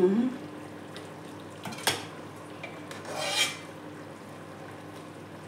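Metal ladle knocking and scraping against a stainless steel pot while stew is served out of it: one sharp knock about two seconds in, then a longer scrape a little later, over a faint steady hum.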